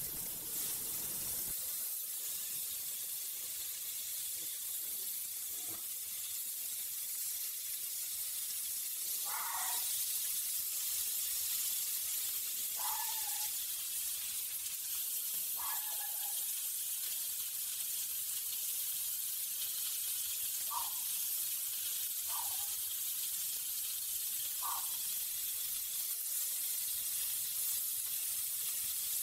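Lamb chops sizzling on a hot ridged grill pan, a steady high hiss. A few faint, short, falling chirps sound now and then over it.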